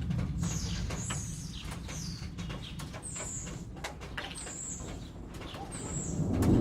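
Rain dripping over a low rumble of distant thunder, while a bird gives short, high, descending chirps every second or so. Near the end the rumble swells as more thunder rolls in.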